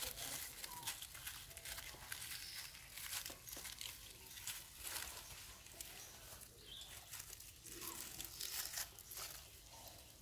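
Dry leaf litter rustling and crackling in irregular spurts as infant monkeys crawl and scramble through it.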